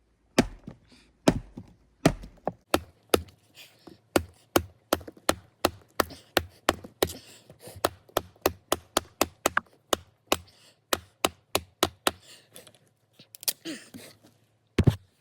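An axe chopping into a thick piece of firewood: a long run of sharp wooden strikes, about two to three a second, with one louder blow near the end.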